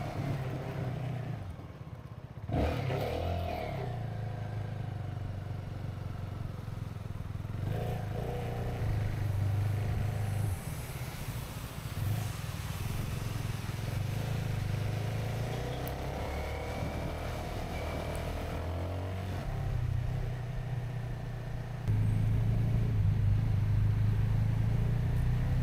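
CFMoto 250NK's single-cylinder engine running under way, its note rising and falling with throttle and gear changes, with road noise from wet tarmac, picked up by the action camera's built-in microphone. A sharp knock comes about two and a half seconds in, and the engine gets suddenly louder near the end as the throttle opens.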